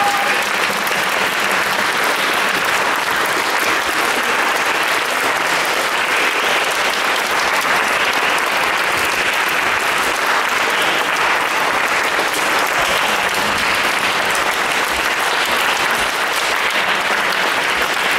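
Concert-hall audience applauding steadily, an even, unbroken clapping that holds at one level throughout.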